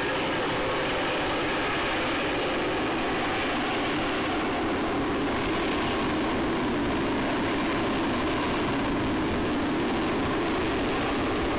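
F-35 Lightning II fighter's single jet engine sounding steadily as the jet passes slowly at low level, a continuous heavy rumble with a faint whine in it.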